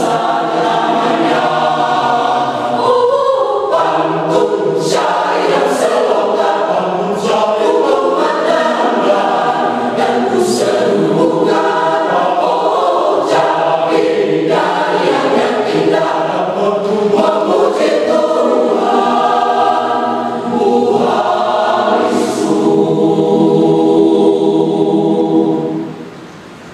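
Church choir singing in several voice parts, ending on a long held chord that cuts off shortly before the end.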